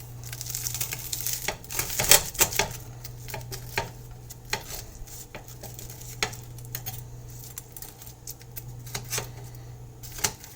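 Metal cutlery clicking and scraping against a plate as a crisp, butter-fried tortilla quesadilla is cut. There is a denser run of scraping in the first few seconds, then scattered taps and clicks.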